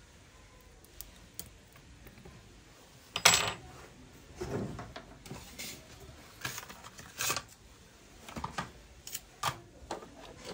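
Small tools and phone parts being handled on a repair bench: about ten irregular clicks and light taps of small hard objects, the loudest about three seconds in.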